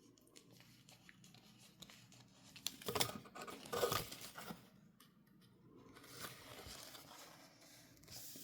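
Packaging of washi tapes and sticker packs being handled and torn open, crinkling and tearing. It is loudest about three and four seconds in, with softer rustling later.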